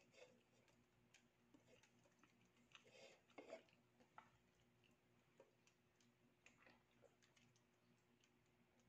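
Near silence: a faint steady hum with scattered small clicks and knocks, the loudest about three and a half seconds in, as a drink can is picked up and sipped from.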